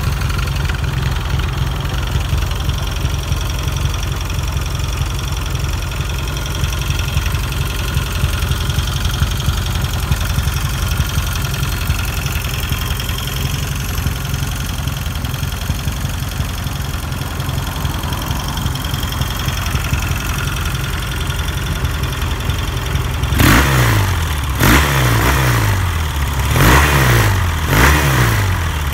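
Yamaha XS650 air-cooled parallel-twin engine idling through its stock megaphone mufflers, then blipped several times near the end, the pitch rising and falling with each quick rev.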